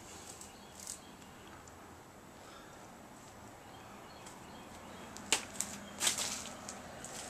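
Loose paper rustling as it is picked up and handled, with a sharp crack about five seconds in and a louder crackling rustle just after, from paper and burnt debris.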